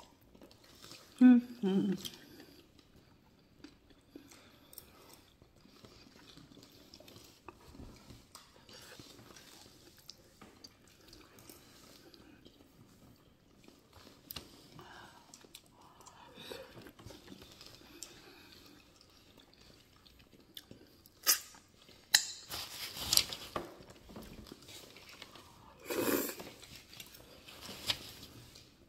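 Close-miked eating sounds: lamb neck chop meat being chewed and sucked off the bone, with wet mouth noises and smacking. There is a short hummed sound about a second in, and a few louder smacks or slurps about three-quarters of the way through and again near the end.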